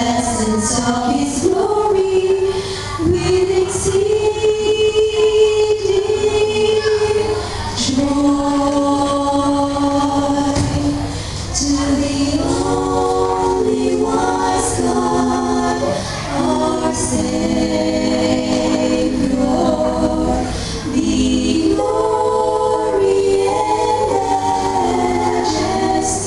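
Female vocal trio singing in harmony into handheld microphones, with long held notes.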